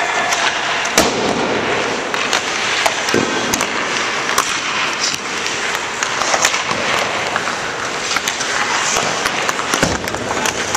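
Hockey rink during goaltending practice: skates scraping the ice under a steady echoing din, with sharp clacks of pucks and sticks striking at irregular moments.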